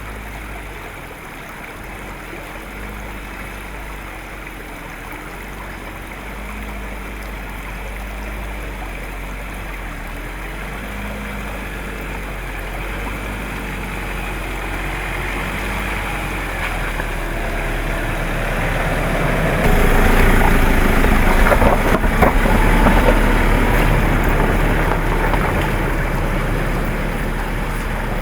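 A 2012 Land Rover Defender 90's diesel engine running as it wades through a shallow stream, growing louder over the flowing water, with loud rushing and splashing water about twenty seconds in that then eases off.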